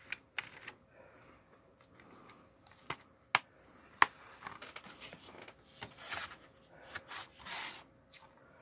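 Plastic Blu-ray case being handled and snapped shut, with a few sharp clicks about three to four seconds in. Near the end the thin cardboard slipcover slides back over the case with a rustling scrape.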